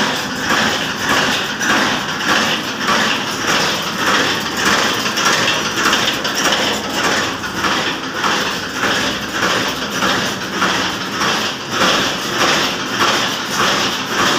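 Fully automatic barbed wire making machine running: an even, repeating mechanical clatter of about two strokes a second over a steady machine hum.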